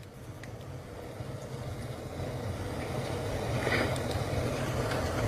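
A steady low rumble, like a motor vehicle's engine, growing gradually louder.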